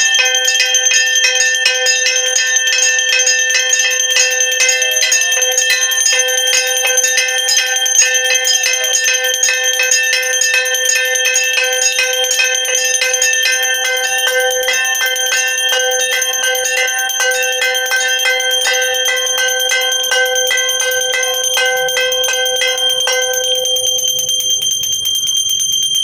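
Brass puja bell rung rapidly and continuously during an aarti, a fast even clatter of strikes over a steady ringing. Some of the lower ringing drops out near the end while the higher ringing goes on.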